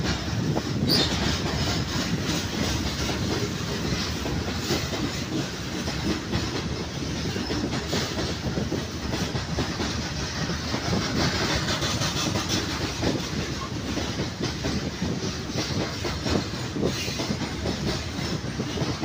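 Long freight train of open hopper wagons rolling past, its wheels clattering steadily over the rails with a continuous clickety-clack.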